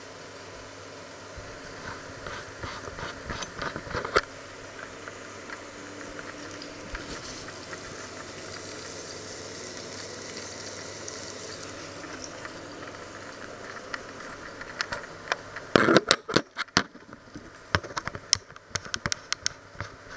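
Handling noise in a kitchen: scattered clicks and a knock about four seconds in, a soft hiss in the middle, then a run of loud knocks and rattles near the end as the camera is gripped and moved by hand, over a steady low hum.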